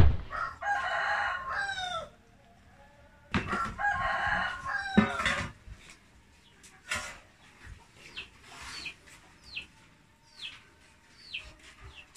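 A sharp knock right at the start, then a rooster crowing twice, each crow about two seconds long and falling in pitch at the end. After that comes a string of short, high, falling bird chirps.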